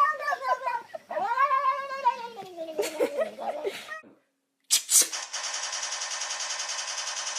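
A domestic cat meowing in two long, drawn-out yowls, the second sliding down in pitch. After a brief gap a click is heard about five seconds in, followed by a steady, rapidly pulsing buzzing rattle.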